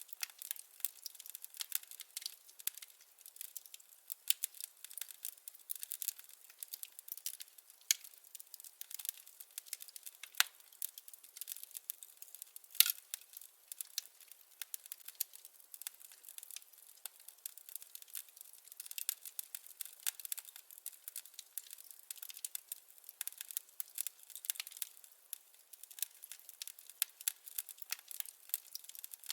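Wood fire crackling, with a steady run of small snaps and pops and one louder pop about halfway through.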